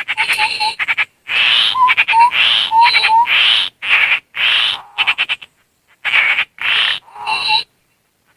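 Harsh, rasping scolding calls of a tepus landak babbler, repeated in quick bursts with rattling chatters between them, mixed with short rising whistle notes. The calls stop shortly before the end.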